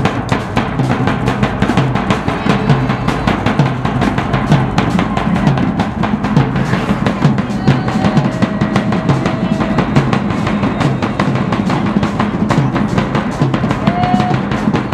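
Drums beaten in a fast, continuous, steady roll of dense strokes.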